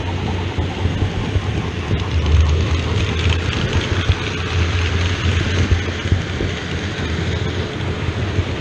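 OO gauge model train running along the layout's track: a steady rumble with a constant fine clicking, louder and brighter in the middle.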